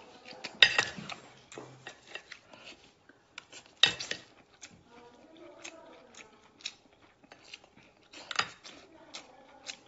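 Close-up eating sounds: wet biting, sucking and chewing of soft seafood, with many sharp mouth smacks and clicks. The loudest come about half a second, four and eight and a half seconds in.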